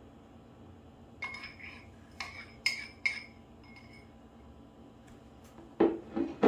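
A spoon clinking about four times against the rim of a bowl with a short ring as cream is scraped out. Near the end a few dull knocks as a small ceramic bowl is set down on a wooden board.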